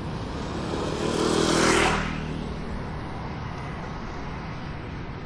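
A motor vehicle passes close by. Its engine and road noise swell to a peak just under two seconds in, then drop away sharply, over steady background street-traffic noise.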